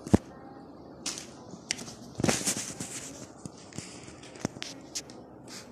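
Cats play-fighting on a wooden floor: a sharp knock just after the start, then a string of short scuffling bursts and clicks from paws and bodies, the biggest about two seconds in.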